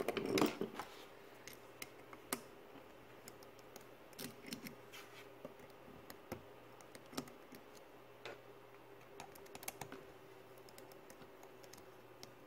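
Small Torx screwdriver working the tiny screws out of a hard drive's circuit board: faint, scattered clicks and taps of metal on metal, with a brief clatter in the first second. A faint steady hum sits underneath.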